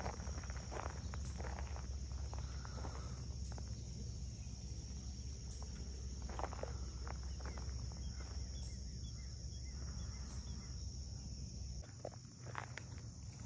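Night insect chorus, a steady high-pitched ringing, over a low rumble that drops away near the end, with scattered rustles.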